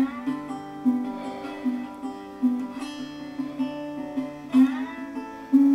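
Recorded guitar music: a run of plucked notes ringing over a low repeating note, with a few louder notes near the end. It is played back through a compressor plugin that is applying a little gain reduction now and then.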